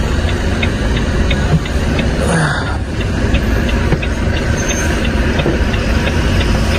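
Steady low engine and road rumble inside the cab of a moving Volvo truck, with a regular ticking about three times a second from the turn-signal relay.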